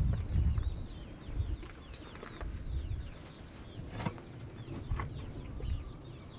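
Many small birds chirping, short falling chirps overlapping throughout, over a gusty low rumble. Two sharp taps about four and five seconds in, a ladle knocking against the metal cooking pot.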